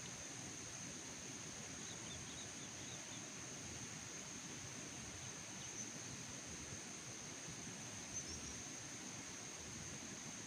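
Outdoor ambience with a steady high-pitched insect drone, like crickets, over a low even background noise, with a few faint bird chirps about two seconds in.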